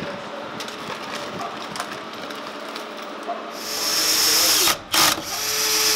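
Cordless drill driving a screw through a door hinge into the jamb. The motor runs steadily for about a second starting about three and a half seconds in, stops with one quick blip, then runs again steadily until near the end.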